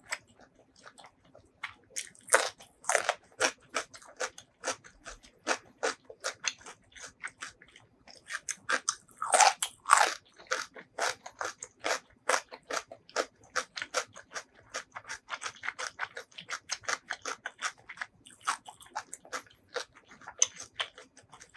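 Close-miked chewing of food: a rapid, irregular run of wet mouth clicks. The bites come louder a couple of seconds in and again near the middle.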